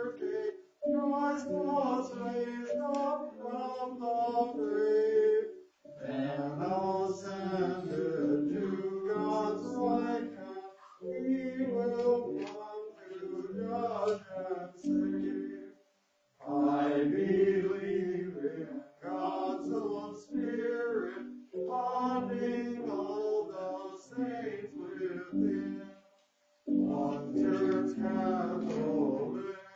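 Many voices reciting a text together in unison, in an even chant-like rhythm, phrase by phrase with short breaks for breath between.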